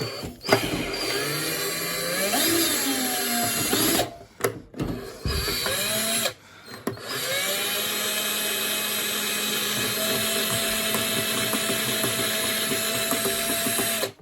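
Cordless drill-driver running in three spells to undo the screw that tightens a washing machine door seal's retaining band. Its motor pitch rises and falls in the first spell, it stops briefly about four seconds in and again about six and a half seconds in, then it runs steadily until it cuts off at the end.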